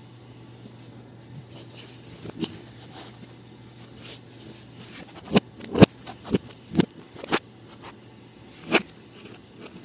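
A hand tapping and knocking on a tabletop close to the microphone while working Play-Doh: a quick run of about eight sharp taps a little past halfway, and one more near the end, over a low steady hum.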